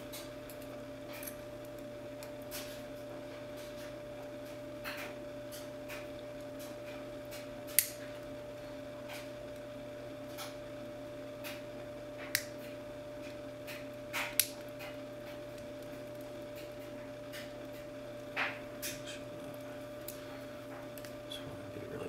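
Small metallic clicks and taps of a lock pick and tension wrench working the pins of an LSL pipe key padlock during picking, scattered and irregular, with a few sharper clicks standing out. A steady hum runs underneath.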